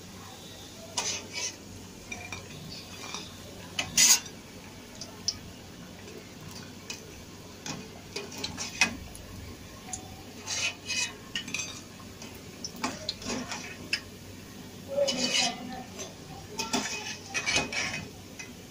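A perforated steel skimmer clinking and scraping against a steel pot as fried peyaju are lifted out of hot oil, in irregular knocks and clusters of clinks, the loudest about four seconds in. Frying oil bubbles under it as a steady faint hiss.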